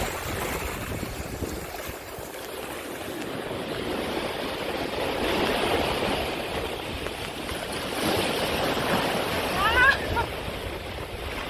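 Small sea waves washing and foaming in the shallows around a wading person's legs: a steady surf hiss. Near the end a woman gives a short, high laughing squeal, the loudest moment.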